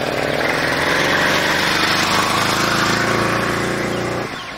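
Small two-stroke bicycle kit engine running just after being bump-started by dumping the clutch while pedalling, a steady buzzing engine note. Its sound drops off sharply near the end.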